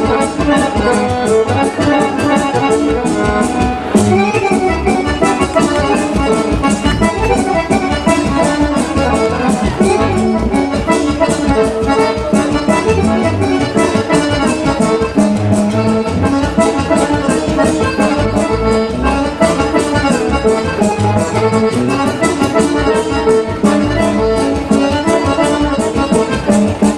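Accordion-led Serbian folk dance music played with a steady, quick beat.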